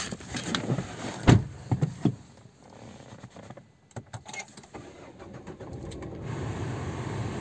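Car door shutting with a heavy thud about a second in, followed by a few knocks and clicks; then the car's engine, started by its push-button starter, catches about six seconds in and settles into a steady idle.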